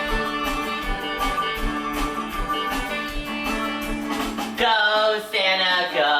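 Upbeat song intro led by strummed guitar over a steady beat. About three-quarters of the way in, a loud lead line with sliding pitch comes in over it.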